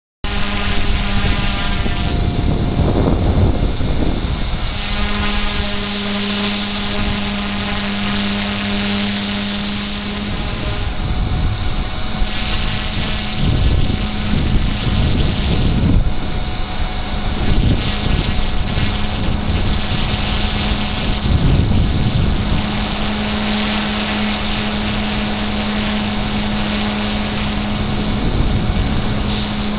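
E-flite Blade mCP X micro RC helicopter in flight, heard from a keychain camera strapped to the airframe: its HP05 brushless main motor and dual tail motors give a steady, high-pitched whine over rotor noise, with small changes in pitch. The sound starts abruptly at the very beginning.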